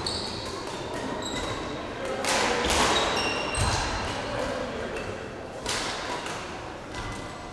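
Badminton court sounds in a sports hall: several sharp hits and thuds, and short high squeaks of shoes on the court floor, with voices echoing in the background.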